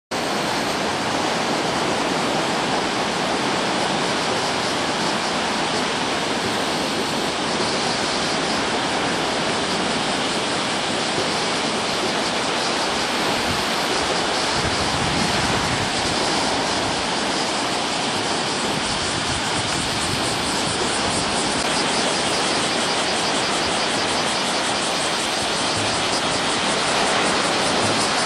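Steady, unbroken rush of ocean surf from typhoon swell breaking on the beach.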